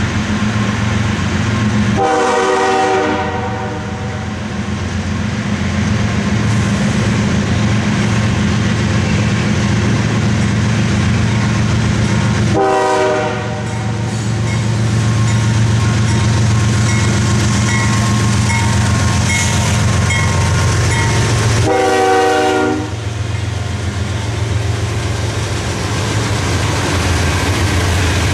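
CSX diesel freight locomotives approaching and passing, engines running with a steady low drone. The lead unit sounds its multi-chime horn three times, each blast lasting one to two seconds: near the start, about halfway through, and about three-quarters of the way through.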